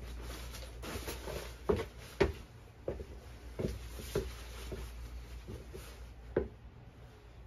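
Coats rustling as they are pulled off wall hooks, with about seven light knocks at uneven intervals.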